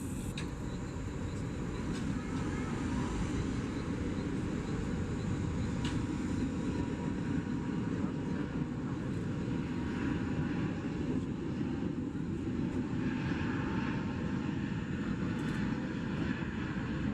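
Airbus A350 jet engines, Rolls-Royce Trent XWB turbofans, running at high power for takeoff: a loud, steady low rumble.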